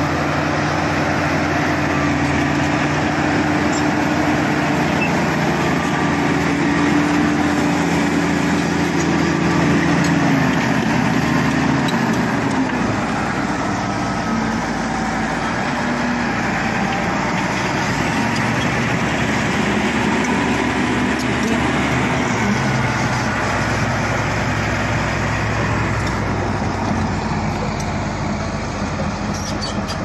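Shantui SD16 crawler bulldozer's diesel engine running under load as it pushes soil, with the engine note dropping about ten to twelve seconds in.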